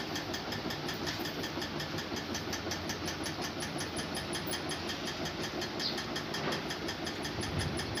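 An engine running steadily in the background with a fast, even beat.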